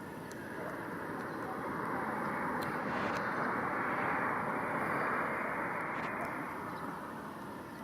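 A passing vehicle: its noise swells to a peak about four seconds in and then fades away.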